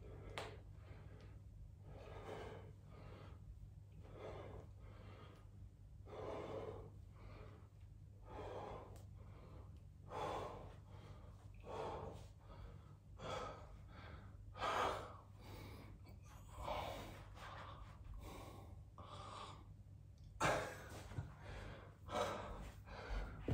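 A man breathing hard through his mouth after bodyweight squats, a loud breath about every second, getting heavier near the end.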